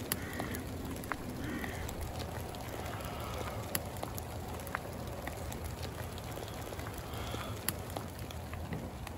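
Quiet outdoor ambience: a steady low rumble of background noise with a bird calling faintly a few times and scattered small ticks.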